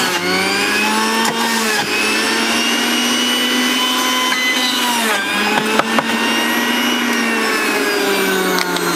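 Sujata electric juicer running steadily as carrot pieces are pushed into its feed chute. The motor whine sags in pitch near the start and about five seconds in, as it takes the load of the carrot, and drifts lower near the end. A few sharp knocks come around five to six seconds in.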